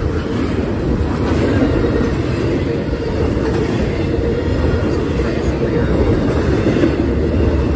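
Double-stack intermodal freight cars passing close at speed: a steady low rumble of steel wheels on rail.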